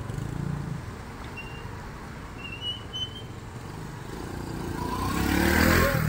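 Road vehicles running past with a steady low engine rumble. Near the end one vehicle accelerates past close by, its engine rising in pitch and growing loud.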